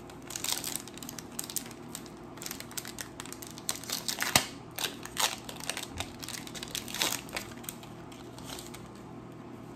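Foil wrapper of a Pokémon card booster pack crinkling and crackling in quick irregular bursts as it is handled, the loudest crackle about four seconds in, settling down over the last two seconds.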